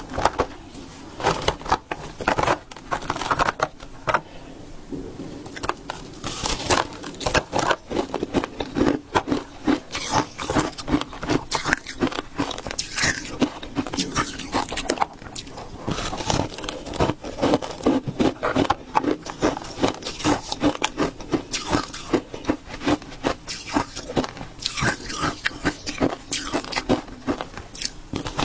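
Shaved ice being bitten and chewed close to the microphone: dense, irregular crunching and scraping throughout.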